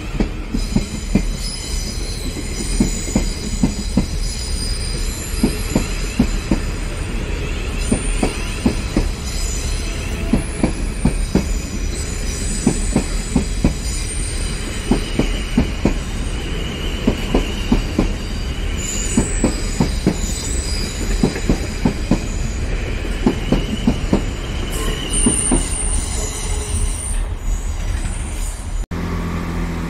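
A South Western Railway Class 450 Desiro electric multiple unit running past along the platform, its wheels knocking over rail joints in quick groups, with thin high squealing tones over the top. Near the end the sound cuts suddenly to a steady low hum.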